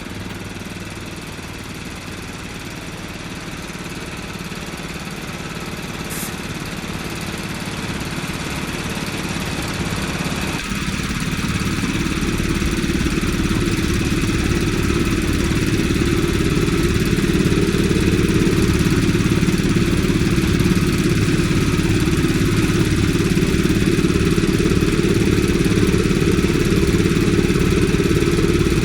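An engine running steadily and growing gradually louder, with its pitch and tone changing about ten seconds in.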